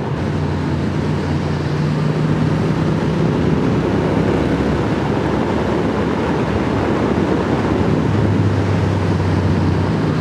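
Triumph Speed Twin's parallel-twin engine running at a steady cruise, its note shifting slightly a couple of times, with wind rushing loudly over the helmet microphone on the unfaired bike.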